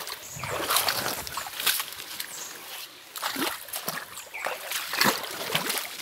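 Footsteps and brushing through dry leaf litter, twigs and grassy undergrowth while walking down a slope, a run of irregular rustles and crackles.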